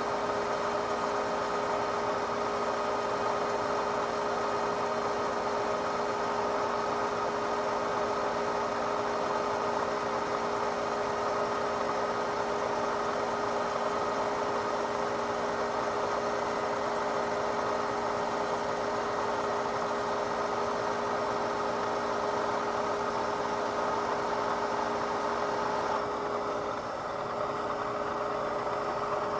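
Metal lathe running steadily, a constant machine whine with a few fixed tones over a mechanical hum; the sound drops slightly for a couple of seconds near the end.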